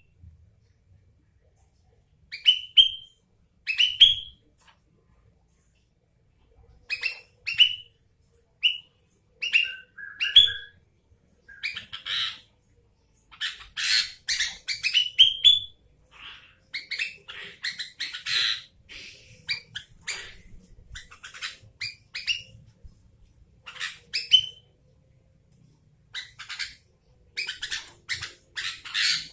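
Sooty-headed bulbul singing: short groups of quick rising whistled notes mixed with harsh, scratchy chattering calls, busiest in the middle and again near the end, after a silent first two seconds.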